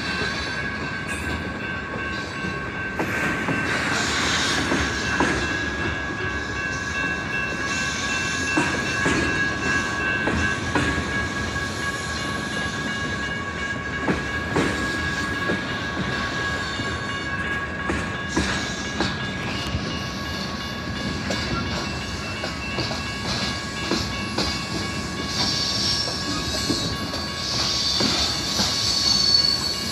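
Freight train cars rolling past close by, a steady rumble with wheels clicking over rail joints. A steady high-pitched wheel squeal fades out about two-thirds of the way through, and a higher squeal rises near the end.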